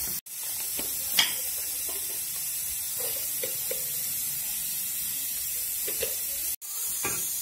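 Bitter gourd slices shallow-frying in a little oil on a flat iron tawa: a steady sizzling hiss, broken off for an instant twice.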